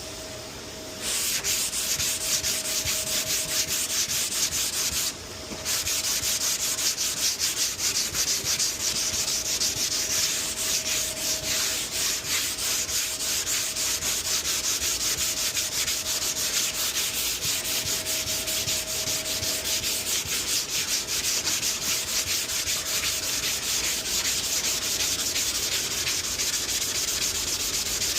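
Sandpaper being run over the topcoat (clear coat) of a car's paintwork, a steady scraping that starts about a second in and pauses briefly around five seconds in.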